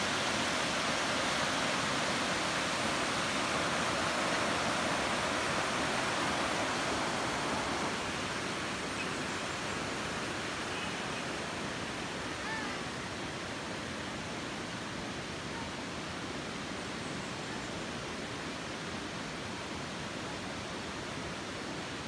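Steady rush of a rocky, fast-flowing river's rapids, which drops a little in level about eight seconds in.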